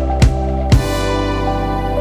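Background music: a few sharp drum hits about half a second apart over sustained chords, then the beat drops out about a second in and the chords hold.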